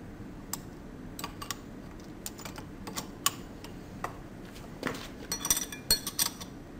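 Steel three-jaw wheel puller being fitted and hand-tightened on a pump shaft hub: its legs and central screw click and clink against the metal. The clicks are scattered at first, then come in a quick flurry of clinks about five seconds in.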